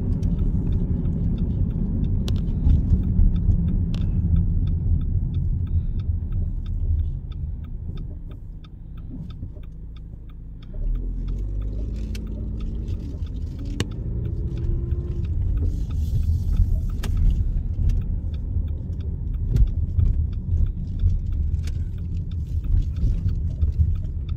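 Low rumble of wind and handling noise on a handheld phone microphone while walking outdoors, with a fast run of light regular ticks over the first several seconds. It drops quieter for a few seconds just before the middle, then the rumble returns.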